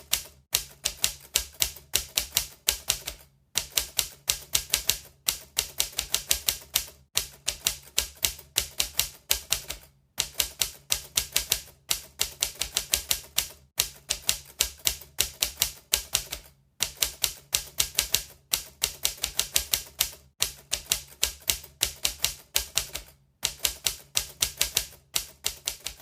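Typewriter keys being struck in fast runs of typing, several sharp clacks a second, broken by short pauses every few seconds.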